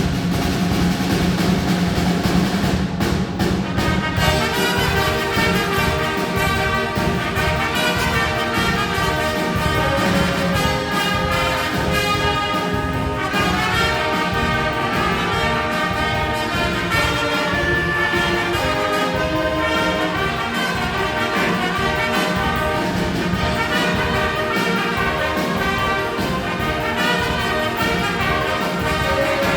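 Brass instruments and drums playing music, loud and continuous; the held horn notes come in clearly about four seconds in.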